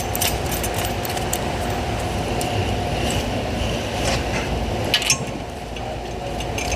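A few sharp metallic clinks of hand tools and bolts against metal over a steady low shop hum.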